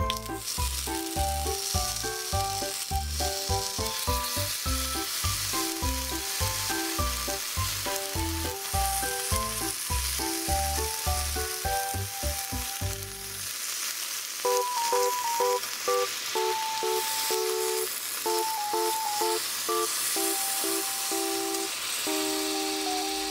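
Eggplant halves coated in a gochujang chili-paste sauce sizzling in olive oil in a frying pan over low heat, a steady hiss.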